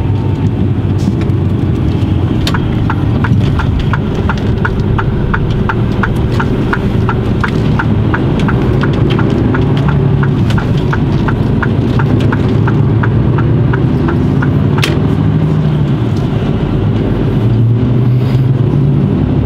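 Heavy truck's diesel engine running as it pulls away, heard from inside the cab. For about eleven seconds the turn-signal indicator ticks about three times a second while the truck turns out onto the road, followed by one sharper click.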